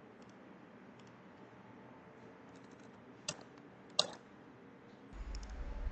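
Computer mouse clicks over faint room hiss, with two sharper clicks about three and four seconds in. A low hum comes in near the end.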